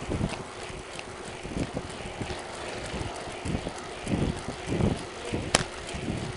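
Bicycle riding along a paved road: wind and road noise with irregular low knocks and rattles over the bumps, and one sharp click about five and a half seconds in.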